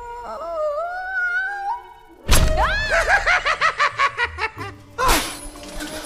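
Animated film soundtrack: held orchestral tones sliding upward, then a sudden loud crash about two seconds in. The crash is followed by a quick run of high cries that rise and fall, and a second loud hit near the end.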